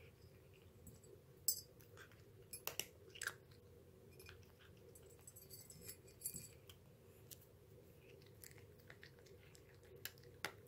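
A cat eating from a bowl: faint, irregular chewing with scattered clicks and short crunches, a few of them louder.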